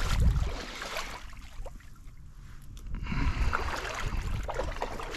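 Wind buffeting the microphone in uneven gusts, over a steady hiss of river water and small rustles and clicks of handling.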